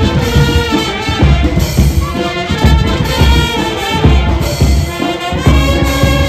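Police brass band playing live: brass horns carry the tune over a steady drum beat.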